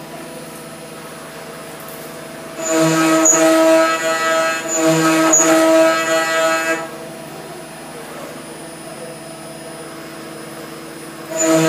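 Homemade Bassotta CNC router milling an aluminium plate with an end mill: a steady, pitched spindle whine, with a loud, high-pitched cutting tone that comes in about three seconds in, lasts about four seconds, then drops back, and comes in again near the end as the cutter bites into the metal.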